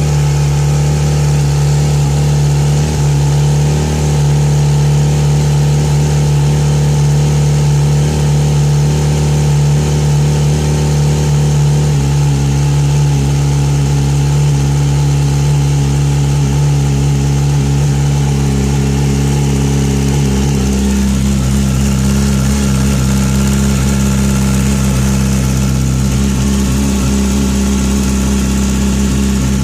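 2009 Yamaha R6's inline-four engine running steadily with no change in revs. About twenty seconds in, its note changes into a noise the owner doesn't think is normal.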